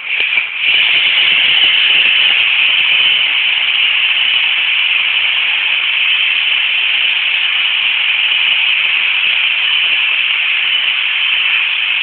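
Two Roomba robot vacuums running: a steady, loud hiss of their vacuum motors and brushes, rising about half a second in.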